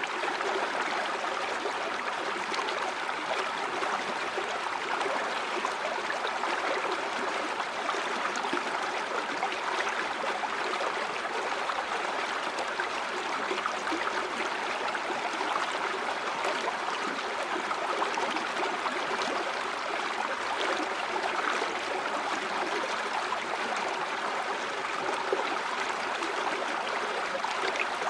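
A stream of water running steadily over rocks, a continuous rushing and babbling.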